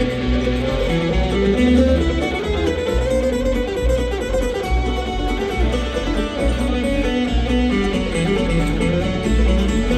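Bluegrass band playing a live instrumental break, with a guitar to the fore over bass and other plucked strings.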